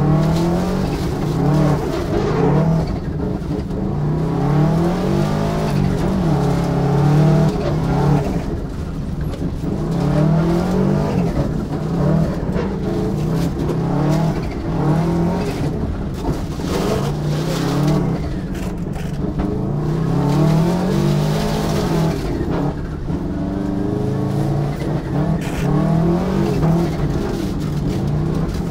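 Turbocharged Subaru EJ22 flat-four rally car engine, heard from inside the cabin, driven hard with anti-lag switched on. It revs up and drops back again and again, every couple of seconds.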